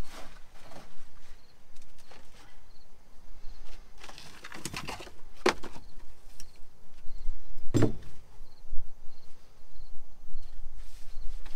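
Rustling and scraping of rotted carpet, padding and dirt being pulled by hand off the rusty sheet-metal floor pan of a gutted 1962 Chevrolet Impala, with a few sharp knocks near the middle. Faint insect chirping ticks along behind it.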